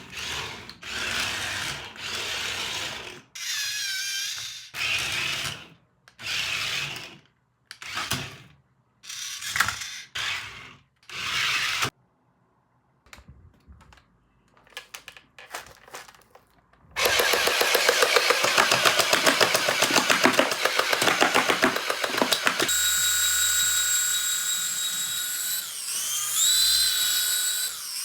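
A run of electronic and motorised toy sounds. For the first twelve seconds there are short separated bursts, then a few faint clicks. About seventeen seconds in a rapid buzzing rattle starts, and it gives way to steady electronic tones that slide up and down near the end.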